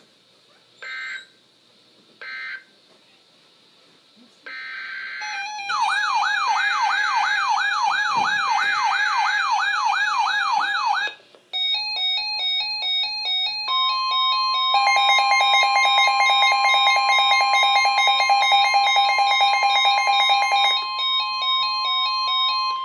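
Electronic weather-radio alert tones. Three short data bursts open it, then a warbling siren-like alarm sweeps up and down about three to four times a second. After that comes a run of stepped electronic beeps, with a long steady alarm tone joining about fourteen seconds in and a fast pulsing beep layered over it for several seconds.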